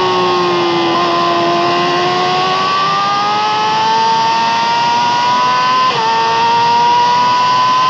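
Yamaha R6's inline-four with an Akrapovic exhaust at full throttle on track: the revs ease off briefly, then climb steadily, with a quick upshift about six seconds in before the revs climb again.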